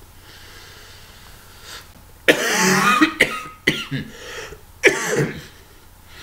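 A man coughing into his fist, a bout of several coughs starting a bit over two seconds in, from an illness he is still getting over.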